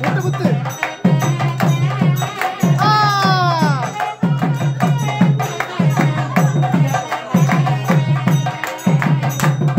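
Live festival music from a drum played in a fast, repeating rhythm with sharp clicking strokes. A single sliding high note falls away about three seconds in.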